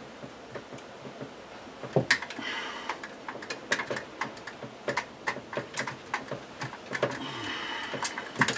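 Twist-on plastic wire nut being screwed by hand onto a splice of wires: a run of small clicks and scrapes that starts about two seconds in, with a longer scraping rustle then and again about seven seconds in.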